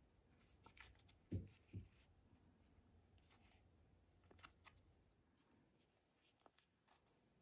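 Near silence with faint handling sounds: the watch's nylon strap and its card hang tags being turned in the fingers. There are two soft low thumps about a second and a half in, then a few light clicks and rustles.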